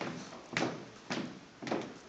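Marching drill team's shoes striking a wooden dance floor in step: sharp knocks at an even cadence of about two a second.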